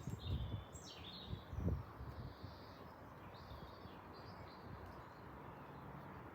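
Small birds chirping outdoors: a few short calls in the first two seconds and again around the middle, over a steady background hiss, with some low rumbling in the first two seconds.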